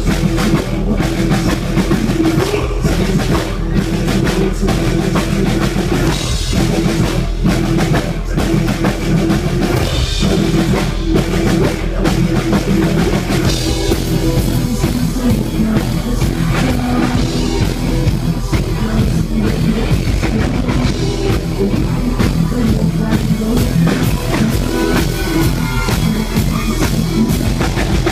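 Live rock band music through a PA: a drum kit with a steady beat and electric guitar, with a singer's vocals over it.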